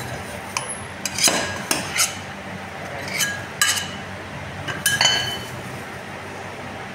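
Two flat metal ice-cream spatulas clinking and scraping against each other and the frozen cold plate as a ball of stone ice cream is worked and lifted into a cup. The clinks are sharp, each with a short metallic ring, and come in quick clusters through the first five seconds.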